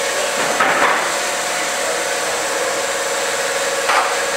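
A steady machine hiss with a faint hum, with a couple of short knocks, one just under a second in and one near the end.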